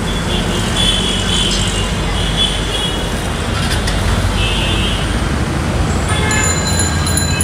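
Street traffic: a steady rumble of passing vehicles, with horns tooting, one longer horn blast near the end.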